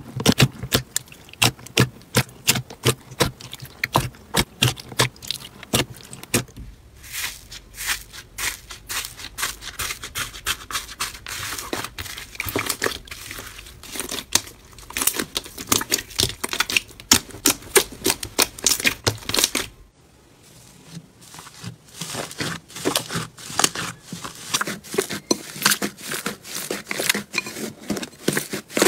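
Hands squeezing, poking and kneading slime, making rapid clicking and popping sounds. The sound changes twice as one slime gives way to another.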